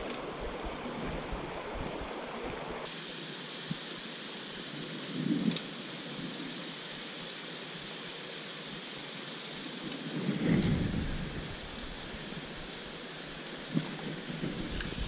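Steady rushing hiss of river water, turning thinner and brighter about three seconds in, with two brief low rumbles about five and ten seconds in.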